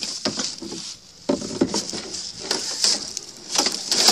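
Dry sticks and dead leaves crackling and rustling as they are gathered up by hand, in irregular snaps and clicks, with the rub of the phone against the hand.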